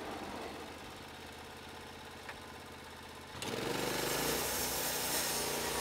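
A motor running steadily at low level; about three and a half seconds in, a louder machine starts, its pitch rising briefly as it spins up and then holding steady with a hiss over it.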